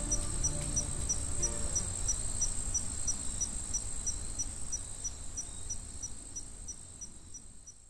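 The end of a background music track: the low melody dies away about two seconds in, leaving a steady high cricket-like trill with regular chirps about four times a second, and everything fades out toward the end.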